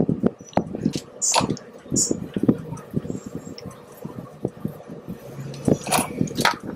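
Close, irregular clicks, taps and scrapes of wire ends being worked in a tin of soldering paste and touched with a soldering iron while the wires are tinned.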